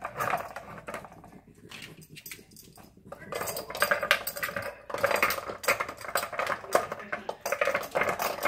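Hard plastic dog treat puzzle clattering and rattling on a hard floor as a small dog noses and shoves it, knocking its cups about. The knocking is sparse at first and becomes a busy clatter from about three seconds in.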